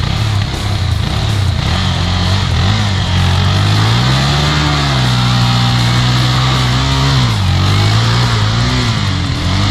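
Dirt bike's single-cylinder four-stroke engine revving. The pitch wavers, climbs about four seconds in and holds high for a couple of seconds, then drops back and wavers again.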